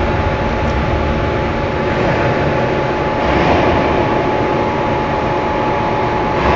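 A wire-cutting machine running steadily: a constant mechanical hum with a steady high whine through it, swelling slightly about halfway through.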